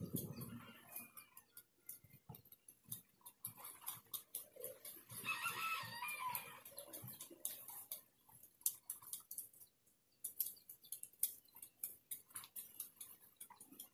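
A rooster crows once, about five seconds in, a call lasting under two seconds. Around it, short crackles and rustles of dry leaves and twigs being pulled and handled.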